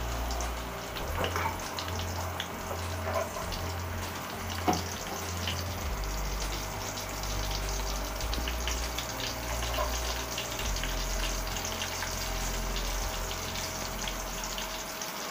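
Chopped onion and ginger sizzling in hot oil in a pan: a steady crackling hiss. A single sharp knock about five seconds in.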